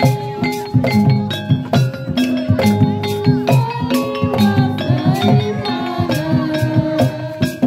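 Jaranan gamelan music: a quick, steady beat of drum strokes under a melody of tuned metal percussion and held notes, playing without pause.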